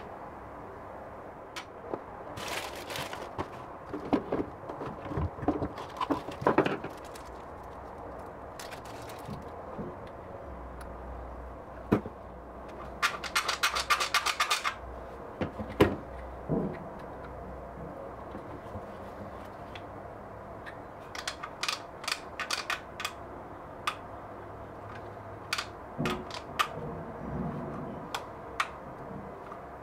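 Handling noise from a one-handed bar clamp, a walnut tube and small metal fittings on a workbench: scattered knocks and clicks, with a quick run of ratcheting clicks about halfway through as the clamp is worked, and another cluster of clicks later.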